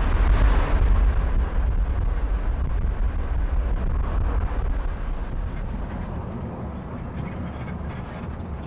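Steady low rumble of engine and road noise heard from inside a moving vehicle. It is loudest at the start and eases gradually.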